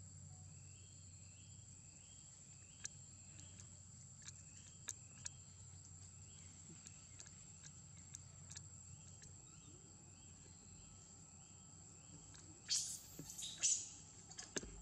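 Forest insects drone steadily at a high pitch, with a short chirp repeating about twice a second and a few faint clicks. About 13 seconds in comes a brief, louder scratchy rustle.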